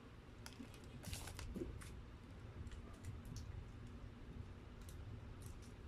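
Faint crinkling and small clicks of a paper burger wrapper and a plastic ketchup sachet being handled, loudest about a second in, over a steady low background rumble.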